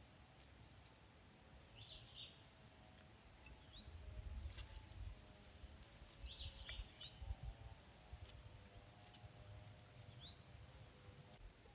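Faint forest ambience: birds give short rising chirps every second or two over a low rumble, with a few sharp clicks about four and a half seconds in.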